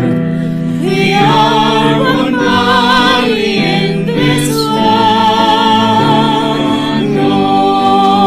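Sacred music in a church service: a singing voice with vibrato holding long notes over sustained keyboard accompaniment.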